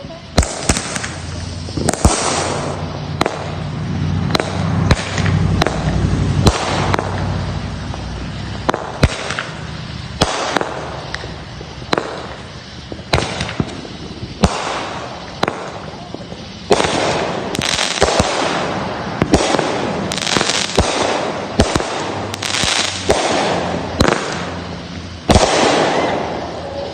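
Consumer fireworks going off: a long run of sharp bangs, about one a second, over a continuous crackling hiss.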